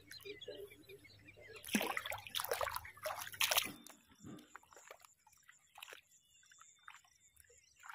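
Shallow water sloshing and splashing, then from about four seconds in, fainter scattered splashes of bare feet wading through it.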